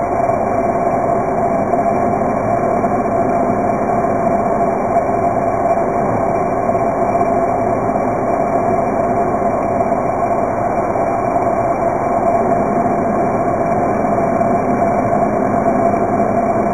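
Steady, muffled drone of a Spitfire's V12 piston engine at cruise power, heard from inside the cockpit, with no change in pitch or loudness.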